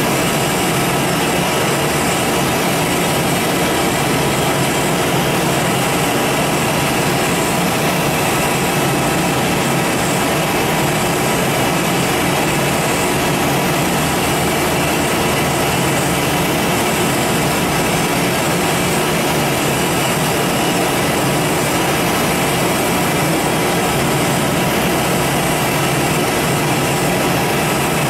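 Giddings & Lewis 84 CNC vertical turning lathe running with an empty table: a steady mechanical hum and hiss with faint whining tones as the toolhead ram traverses. No cutting is heard.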